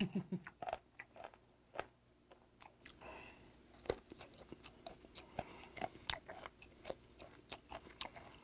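Close-miked chewing of fermented skate: irregular soft wet clicks and crunches of the cartilage as it is bitten down, with a breathy exhale about three seconds in.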